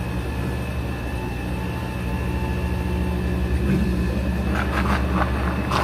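Countertop blender running steadily, its motor whirring as it purees a thick green salsa with cilantro into a vortex.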